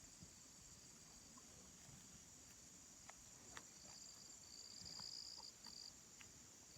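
Faint, steady high-pitched insect chorus in the pasture, with a second, slightly lower high buzz joining from about four seconds in, and a few faint ticks.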